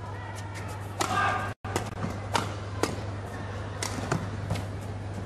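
Badminton rally: rackets striking the shuttlecock in sharp knocks about every half second to a second, with a short shoe squeak on the court about a second in, over a steady low hum.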